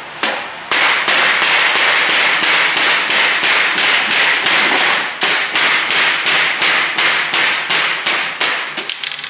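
A brass hammer taps steadily on a long steel punch, about three blows a second, driving the spider gear cross shaft (pinion shaft) out of a Jeep JK Dana 30 differential carrier. The metal rings between the blows, and the tapping starts just under a second in and stops near the end.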